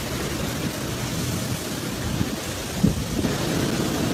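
Steady rushing and rumbling noise from a tour boat beside lava pouring into the sea, with a brief thump about three seconds in.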